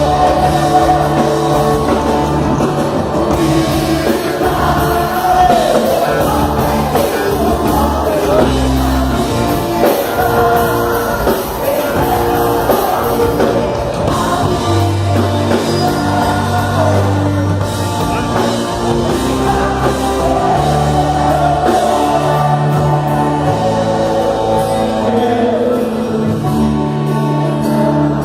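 Live gospel rock band playing with a lead singer: steady bass and drums under a sung melody, in a large room.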